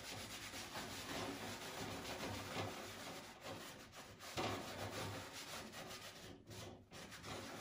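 Cotton rag rubbing back and forth over a perforated steel cabinet door in faint, repeated strokes, buffing off the excess of a dried black metal-blacking cream (zébraline).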